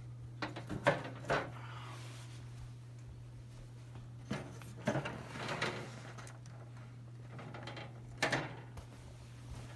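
1972 Galaxy model 3713 20-inch box fan running with a steady low motor hum. Several knocks and clatters of handling come over it: a cluster near the start, more in the middle, and one near the end.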